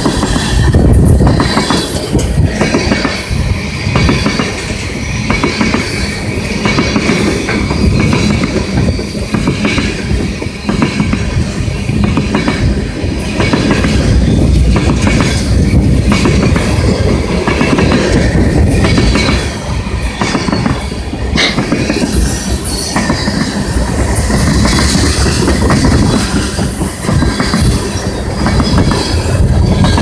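Freight train of tank cars passing close by: a loud, steady rumble of steel wheels on rail with a regular clickety-clack over the rail joints. One sharp clank stands out about two-thirds of the way through.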